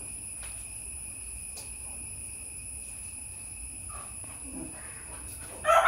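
Crickets chirring in the background: a steady, high-pitched drone of several unbroken tones.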